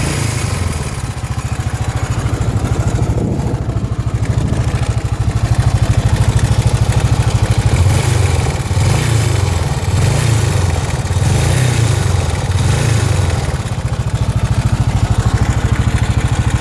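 Suzuki DR 800 S big single-cylinder four-stroke motorcycle engine running near idle with a steady, even firing pulse, swelling slightly in level a few times.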